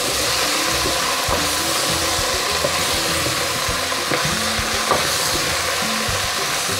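Potatoes, chorizo, onion and green pepper frying in olive oil in a stainless steel pot, sizzling steadily as they are stirred with a spoon, with a few light knocks of the spoon against the pot.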